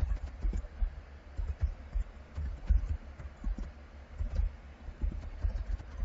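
Typing on a computer keyboard: irregular keystrokes, several a second, heard mostly as dull thuds.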